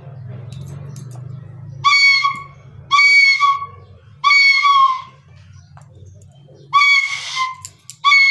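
A child blowing a bamboo flute (baanshi) in short, loud blasts on one high note, four of them, each under a second, with pauses between.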